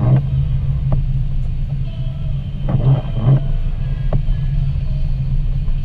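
Steady low road and engine rumble of a car heard from inside the cabin on a wet road, with the windshield wipers swishing across the glass at the start and again about three seconds in.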